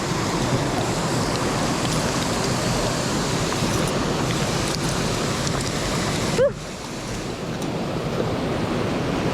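Mountain stream water rushing steadily, with one brief short squeak about two-thirds of the way through, after which the rushing is briefly quieter.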